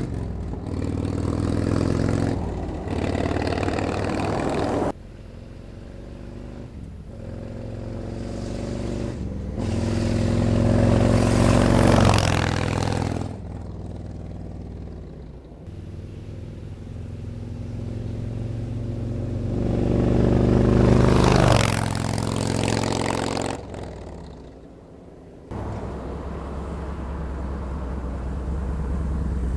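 Harley-Davidson Road Glide V-twin running through TAB Performance 50 Cal slip-on mufflers, pulling up through the revs twice and easing off between. The level jumps suddenly about five seconds in and again near the end.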